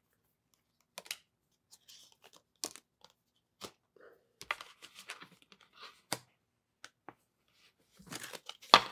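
Tarot cards of the One World Tarot deck handled and sorted in the hands: short, irregular snaps and paper-like rustles as cards are slid and flicked, with a louder flurry near the end.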